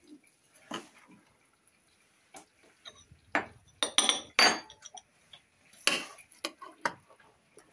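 A metal spoon scraping and clinking against a ceramic baking dish and plate as crumble is scooped out and served. The strokes come scattered, with the loudest clinks about four seconds in.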